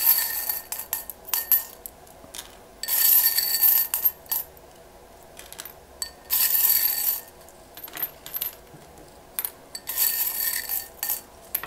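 Small charms and letter pieces rattling and clinking inside a ribbed glass tumbler as it is shaken in about four bursts, roughly every three seconds, with single light clicks as fingers stir through them between shakes.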